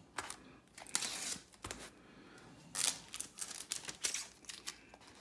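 Packaging being handled and opened: irregular crinkling, rustling and tearing in short bursts, loudest about a second in and again near three seconds in.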